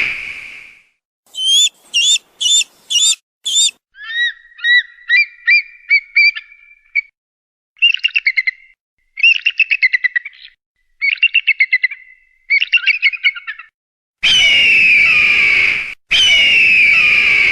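Hawk calls from a bird-scaring recording. A long, hoarse, downslurred scream opens it, and two more come near the end. In between are a quick series of five sharp high calls and several runs of rapid chattering.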